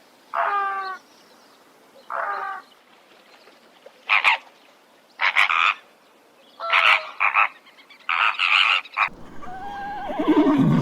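A frog croaking: a series of about seven short croaks spread over eight seconds, some in quick pairs. Near the end a different animal call begins, falling in pitch.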